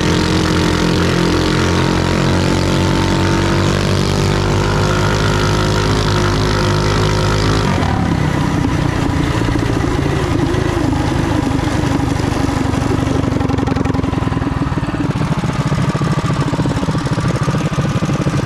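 Mini bike's small single-cylinder four-stroke engine running hard, its pitch creeping up for several seconds. About eight seconds in, the note drops suddenly and runs on lower and more uneven.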